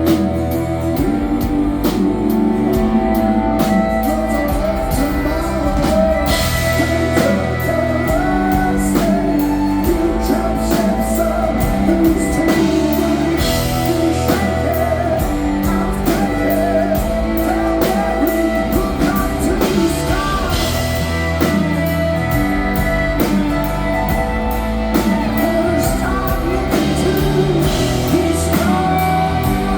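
Rock band playing live: a singer's voice over guitars and a drum kit keeping a steady beat.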